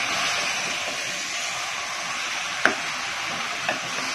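Chopped bottle gourd frying in oil in a pressure cooker pan, a steady sizzling hiss. A wooden spatula knocks lightly against the pot twice, about a second apart, in the second half.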